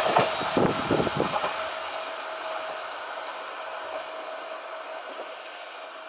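A JR 383-series limited express electric train recedes after passing: a few heavy wheel thumps over the rail joints in the first second and a half, then its running noise fades away, with a thin steady tone underneath.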